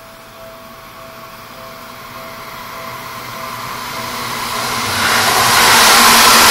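Train approaching along the railway line, its rushing noise growing steadily louder until it is close by near the end. A faint steady two-tone ringing, typical of a level-crossing bell, fades under it in the first few seconds.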